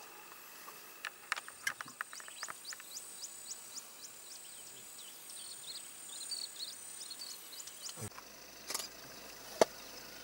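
Bush ambience: a steady high-pitched insect drone with a run of short, quick, high chirps, about three a second, and a few scattered clicks. The ambience changes abruptly about eight seconds in, and a sharp click comes near the end.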